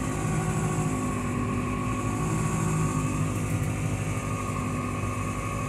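Tractor's diesel engine running steadily at idle, heard from inside the cab, while it creeps along under load with the power take-off engaged to drive the slurry spreader.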